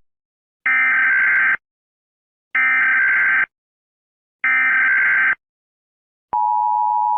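Emergency Alert System SAME header: three identical bursts of data tones, each just under a second long, with about a second of silence between them. Near the end the steady two-tone EAS attention signal starts.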